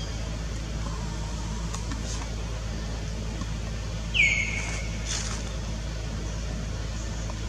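A bird call: one loud, short whistle about four seconds in that slides down in pitch and then holds briefly, over a steady low hum.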